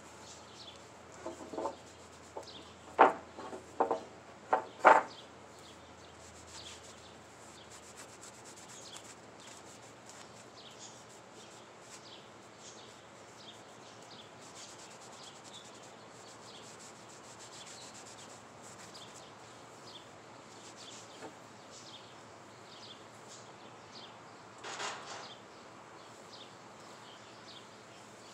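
Wooden 2x4 boards knocking as they are handled, a quick cluster of sharp knocks in the first five seconds and one more about 25 seconds in. Faint bird chirps in the background.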